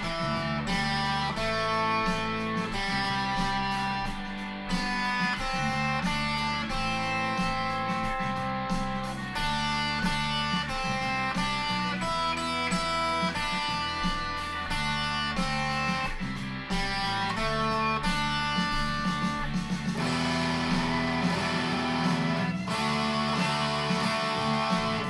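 Electric guitar playing a chord piece at a steady tempo, picked and strummed chords ringing and changing every second or so. Near the end the strumming becomes fuller and busier.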